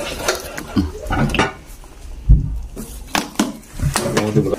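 Clinks, scrapes and knocks of hard objects being handled, with one heavier thump a little over two seconds in.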